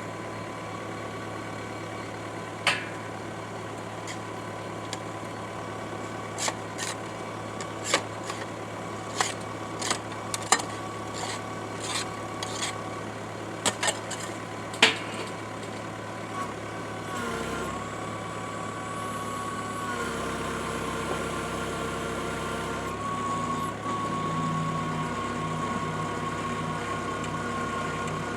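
A machine engine runs a 450 mm auger drilling through a crust of blue rock into clay, with sharp knocks and cracks scattered through the first half as the auger grinds the rock. About two-thirds of the way in, the engine note steps up and holds steady.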